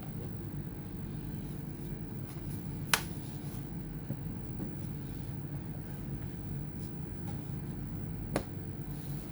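Two short sharp clicks, about five and a half seconds apart, over a steady low rumble.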